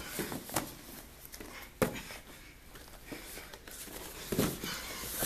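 Grapplers' bodies scuffling and shifting on foam mats, with a few soft thumps, the clearest about two seconds in and again about four seconds in.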